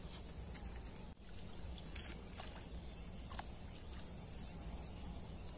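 Quiet riverside sounds of branches and water being handled in shallow water: a couple of faint short knocks or splashes over a steady high hiss.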